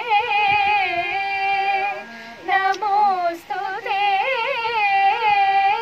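Two women singing a devotional song together, with a wavering, ornamented Carnatic-style melody. The phrases break briefly about two seconds in and again about three and a half seconds in.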